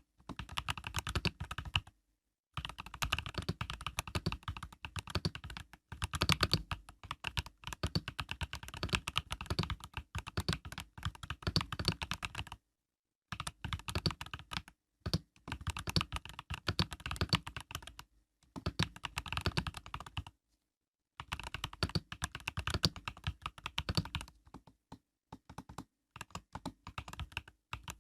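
Typing on an Epomaker EK68 mechanical keyboard with Epomaker Budgerigar tactile switches (POM stems): quick runs of key clacks, stopping for a moment every few seconds.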